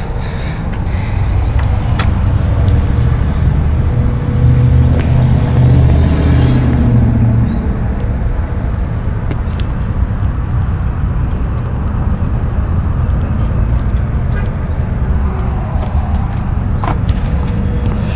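Low rumble of road traffic, with one vehicle passing about four to seven seconds in, its pitch falling as it goes by.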